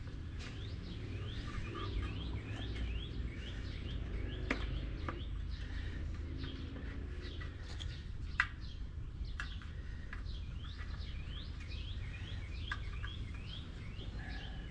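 Small birds chirping over and over, with a steady low rumble underneath and a few sharp clicks, the loudest about eight seconds in.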